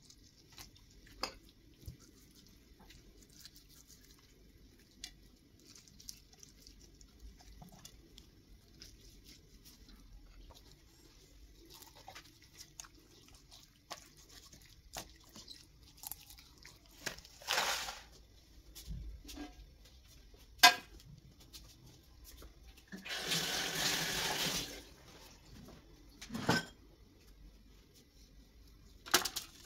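Kitchen handling sounds: scattered clicks and knocks of utensils and dishes, with a kitchen tap running for about two seconds roughly three-quarters of the way through.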